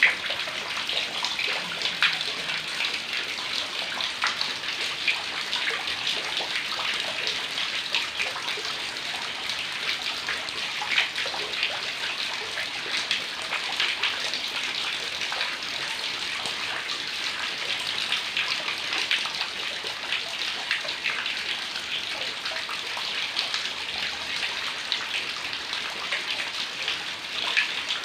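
Heavy rain falling steadily: a dense hiss of many individual drops and splashes.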